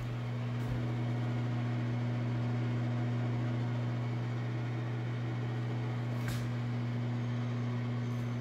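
A steady low motor-like hum over a faint airy hiss, with one light click about six seconds in.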